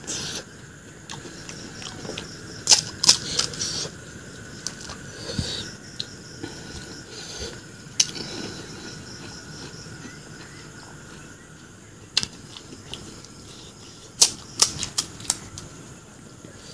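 Close-miked crunching of crisp pani puri shells being bitten and chewed: sharp crackles in clusters about three seconds in and again near the end, with single cracks between, over a faint steady high hum.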